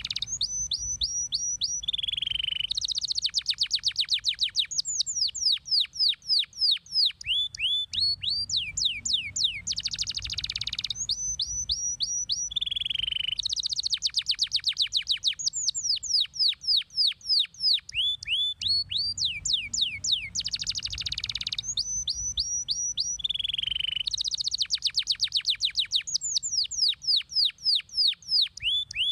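Yellow domestic canary singing continuously: fast rolling trills of quick falling whistles alternate with runs of short steady repeated notes. The same sequence of phrases comes round three times, about every ten seconds.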